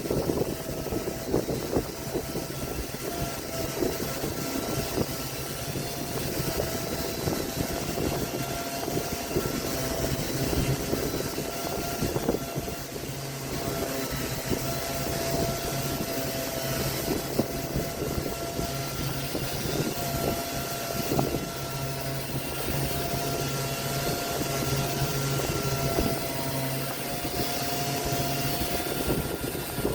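Electric woodworking power tool running steadily, its motor giving a constant whine over the rough, scratchy noise of it working wood.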